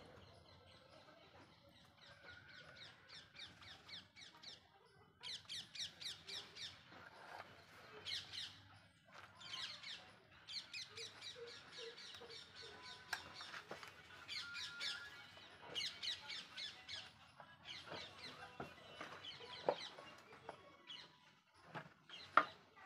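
Small birds chirping and twittering in quick repeated series. Near the end there is a single sharp knock, the loudest sound in the clip.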